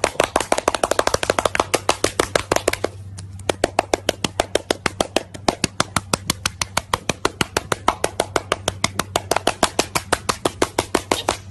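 A seal slapping its belly with its fore flippers: a fast, even run of sharp slaps about five a second, with a short break about three seconds in. A faint low steady hum lies under it.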